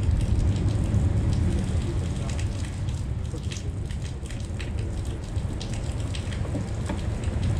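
Rain falling, with scattered drops ticking close by over a steady low rumble.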